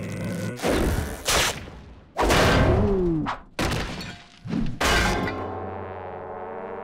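Cartoon sound effects of a barred window grille being bashed and broken out: a run of thuds and crashes, a short falling whistle-like glide about three seconds in, and a last crash near the end followed by a fading ringing chord.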